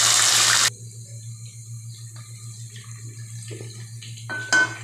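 Chopped onions dropped into hot oil, sizzling loudly, cutting off suddenly under a second in; then faint frying and stirring over a steady low hum, with a brief sharp clatter near the end.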